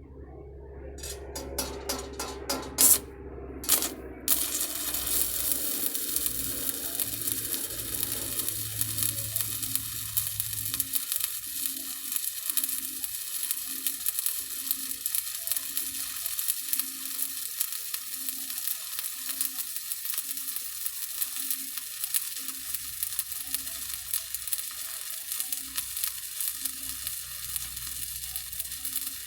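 Stick-welding arc from a 3/32-inch 7018 electrode run hot at about 95 amps: a few sharp crackles and pops as the arc is struck in the first four seconds, then a steady, even frying sizzle as the rod burns on a vertical-up bead, burning well.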